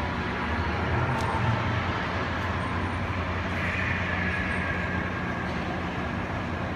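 Steady background noise of a busy train-station concourse: a constant low hum under an even wash of distant activity.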